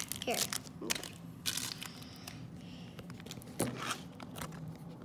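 A small plastic wrapper crinkling and rustling as fingers pry at it to get it open. It is busiest in the first second or so, then fainter, with one sharper crackle a little after three and a half seconds.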